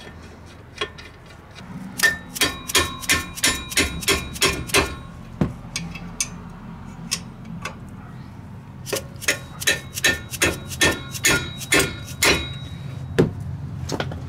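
Ratchet wrench driving a brake bolt home: two runs of quick metallic clicks, about three a second and each a few seconds long, with a few single clicks between them. The bolt ends up snug.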